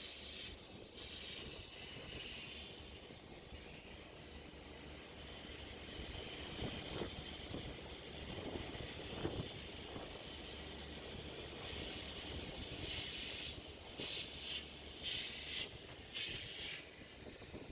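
Moving train heard from inside the coach: a steady running noise, with several short bursts of hissing rattle in the last few seconds.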